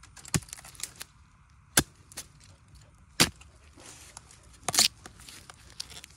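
A long-handled metal digging spade chopping into the base of bamboo shoots and the soil: four sharp strikes about a second and a half apart, with lighter ticks between.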